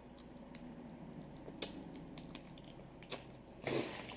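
Crawfish shells cracking and snapping as they are peeled by hand: faint, scattered clicks, with a short louder crackle near the end.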